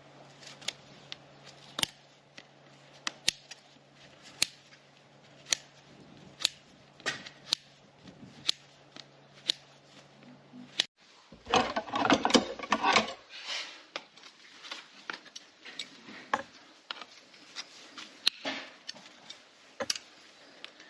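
Hoof-trimming tools cutting a draft horse's hoof horn and sole: sharp snipping clicks about once a second, with a louder stretch of rough cutting and scraping about eleven seconds in.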